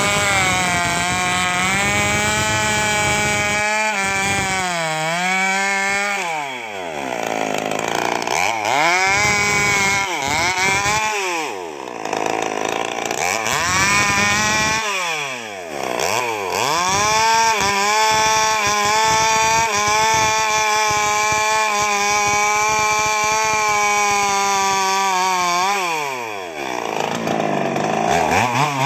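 Two-stroke chainsaw bucking a felled sengon log, held at high revs through long cuts. Several times the revs drop away toward idle and climb again between cuts.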